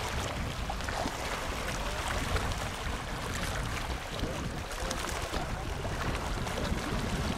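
Wind buffeting the microphone outdoors: a steady rush with an uneven, rumbling low end and a few faint clicks.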